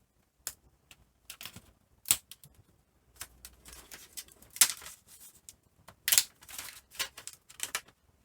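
Irregular light clicks, taps and short scrapes of small plastic and metal laptop parts being handled and pried during disassembly, with sharper clicks about two, four and a half and six seconds in.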